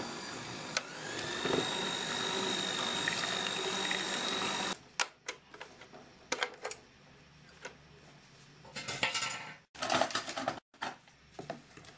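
Electric hand mixer beating thin pancake batter in a steel pot: the motor runs with a steady high whine that rises about a second in, then cuts off suddenly after about five seconds. Scattered clicks and knocks follow as the wire beaters are lifted out and the mixer is handled.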